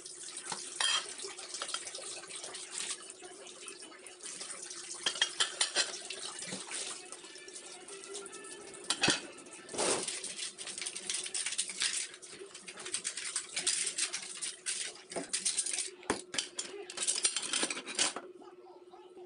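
Plates, a bowl and metal spoons clattering and clinking against each other in a plastic basin of water as dishes are washed by hand, with water splashing. The clinks are irregular, with a steady low hum underneath.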